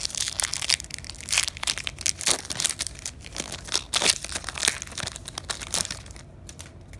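Foil booster-pack wrapper crinkling as it is handled and torn open by hand: a dense run of sharp crackles that dies down about six seconds in.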